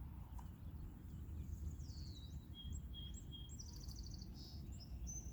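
Outdoor ambience of low wind rumble on the microphone, with songbirds calling faintly over it: a few falling chirps, three short even notes and a quick trill.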